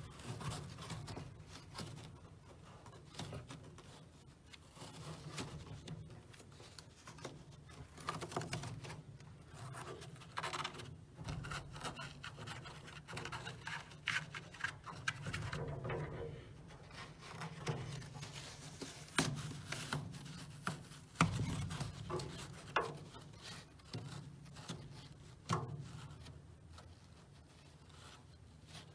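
Hands pressing and rubbing a freshly glued foam panel into place inside a steel gun cabinet: soft, irregular rubbing and scratching, with a few short light knocks.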